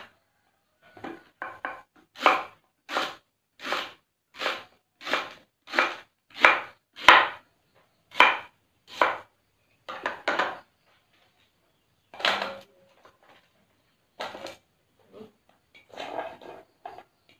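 Kitchen knife chopping fresh taro leaf stalks into chunks on a cutting board, a sharp chop about every 0.7 s for several seconds, then slower, scattered chops in the second half.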